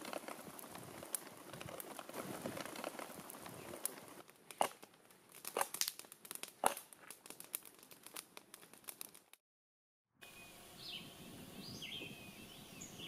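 Crackling of a campfire of burning sticks and brush, with a dense crinkling texture at first and sharp pops and snaps further in; it cuts off suddenly about nine seconds in. After a moment of silence, birds chirp faintly.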